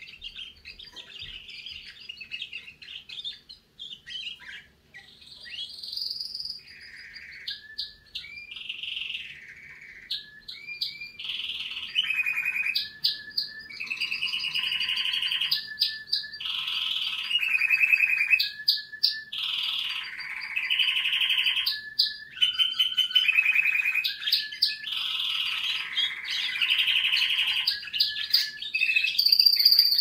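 Young canary singing, a continuous run of warbled phrases and rapid trills that grows louder about a third of the way through.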